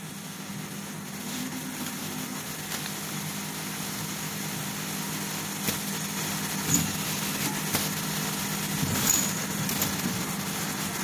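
Automatic floor wiper making machine running: a steady motor hum with a few brief clicks and knocks from its mechanism.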